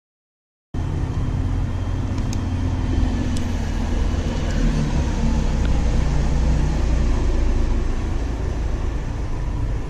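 Road traffic: a steady low rumble of passing cars, with faint rising and falling engine and tyre tones, cutting in suddenly after a moment of silence.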